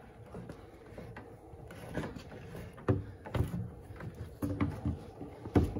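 Scattered knocks and short scraping noises of electrical cable being pulled through holes bored in wooden framing studs, the loudest knocks about three seconds in and near the end.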